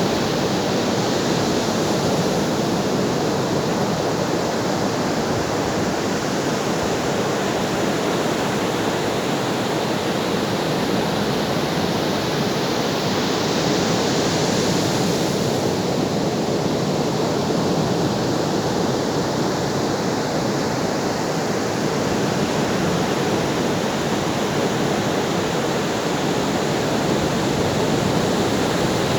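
Ocean surf: a steady, dense rush of breaking waves with little rise and fall, swelling slightly about halfway through.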